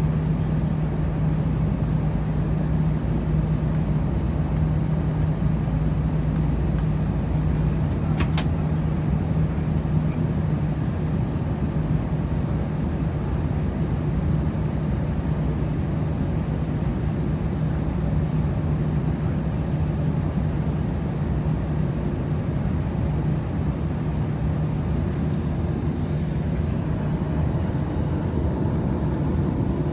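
Steady cabin noise of an Airbus A319 airliner on its descent to land: engine and airflow rush with a constant low drone. A single short click sounds about eight seconds in.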